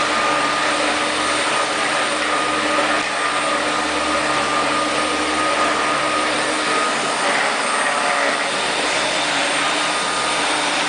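Flymo Hover Compact 330 electric hover mower running steadily while cutting grass: its motor and fan make a continuous rushing whir with a steady whine on top.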